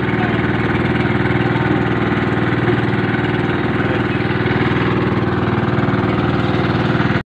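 Engine of a motorized outrigger boat (bangka) running steadily while under way, an even, fast chugging.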